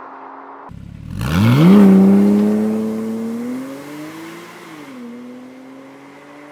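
Porsche Cayman 987.2's flat-six pulling away hard through a Soul Performance valved exhaust with the valves closed: about a second in the revs climb steeply, then keep rising more slowly as the car draws away. Around five seconds in the engine note drops once and carries on more quietly as the car recedes. Before that, a distant car's steady engine note is cut off.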